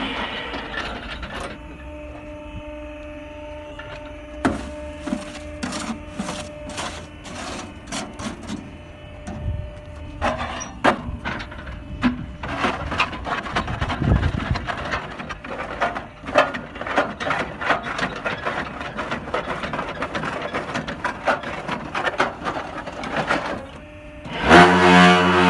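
Concrete block-making machine working: a steady motor hum under irregular metallic clanking and knocking from the mould and pallets, the knocks coming thick and fast through the second half. Near the end a loud, even droning hum starts up.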